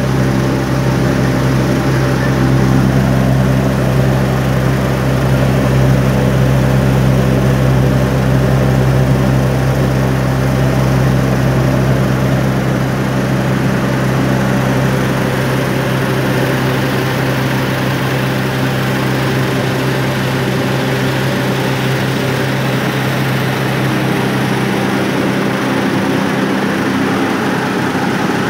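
Sawdust grinding plant machinery running: the steady, loud hum and drone of electric motors and the grinding mill, with a steady low rumble underneath that eases somewhat about halfway through.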